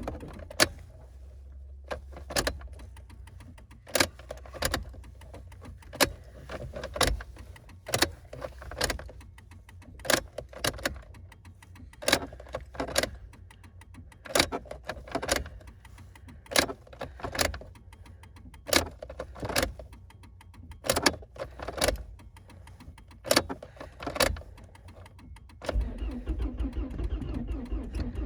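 1999 Volvo S40's 1.8-litre four-cylinder petrol engine running very rough on a cold start, misfiring with irregular sharp pops about once a second, often in pairs, over a low hum, then firing more evenly near the end. It barely runs, a sign of the engine being in poor shape after sitting two months with parts taken off it.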